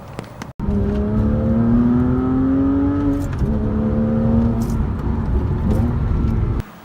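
Porsche Cayman S (987.1) flat-six engine accelerating under load: the note climbs steadily, drops abruptly at an upshift about three seconds in, then pulls on in the next gear before cutting off suddenly near the end.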